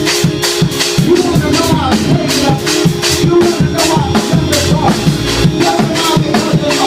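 Fast gospel praise-break music: a quick, steady drum beat of about four hits a second under held organ chords, with a voice wailing over it.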